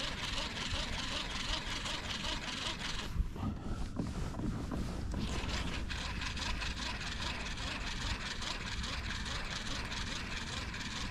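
Baitcasting reel being cranked on a fishing rod: an even, rapid clicking of about four ticks a second that stops for a couple of seconds a little after the start, then resumes, over a low steady rumble.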